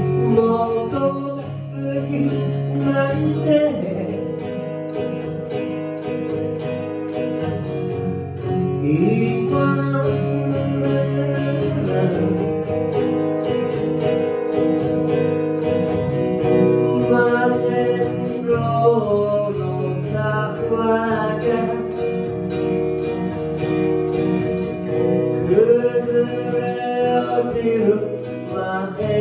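A man singing a song while strumming chords on an acoustic guitar.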